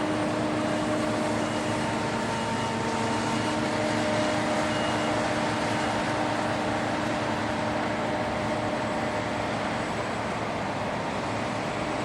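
Combine harvester running: a steady mechanical drone with a constant hum running through it, holding an even pitch and level throughout.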